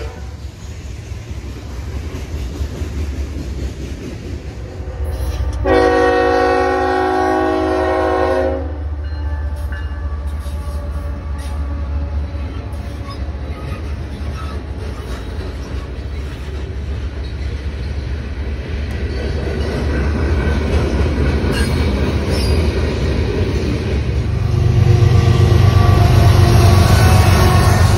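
CSX freight trains rolling past with steady wheel and engine rumble. A diesel locomotive horn sounds one chord blast of about three seconds, roughly six seconds in. Near the end, a lead locomotive passing close makes the rumble much louder.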